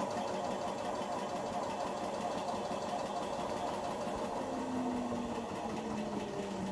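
Indesit washing machine starting a spin-and-drain cycle: the motor turns the drum with a steady mechanical hum. A lower tone joins about four and a half seconds in.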